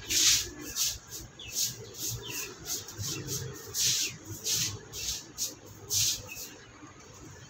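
Water splashed out of a tilted bucket onto a wet concrete floor and dog-cage mat in about a dozen short, irregular swishing splashes, fading near the end.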